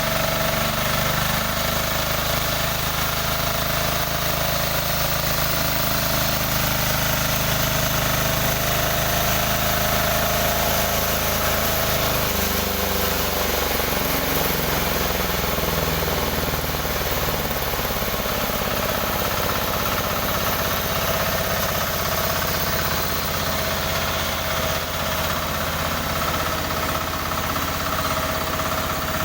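Engine of a newly assembled sawmill running steadily on test, its low tones shifting partway through.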